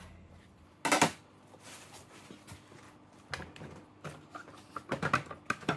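A short, loud clatter about a second in, then a run of light knocks and clicks from about three seconds in, growing busier, as a wooden slab soap mold is handled and its teal side panel worked off.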